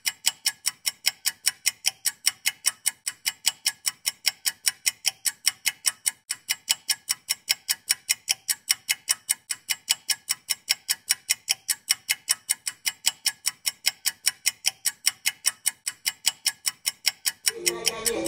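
Fast, perfectly even ticking like a clock or countdown timer, about four to five ticks a second, starting abruptly.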